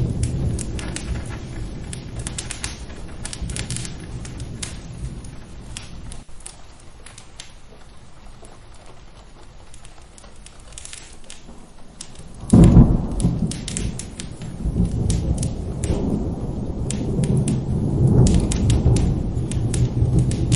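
Thunderstorm with steady rain: a rumble of thunder dies away, then a sudden loud thunderclap about two-thirds of the way through rolls on into a long rumble that swells again near the end. Sharp crackles and pops of a wood fire are scattered throughout.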